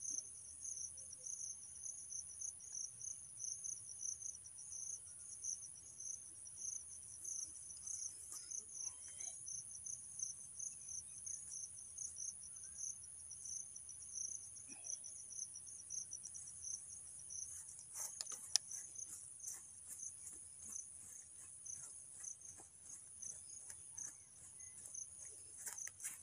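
Field insects chirping: a steady, high, rapidly pulsing drone, with a run of light taps in the last third.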